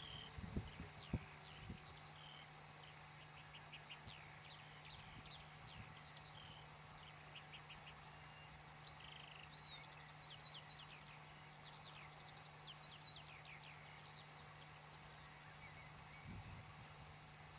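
Faint birdsong: many short chirps, trills and whistles from small birds, scattered throughout, over a steady low hum. A few low knocks in the first two seconds are the loudest sounds.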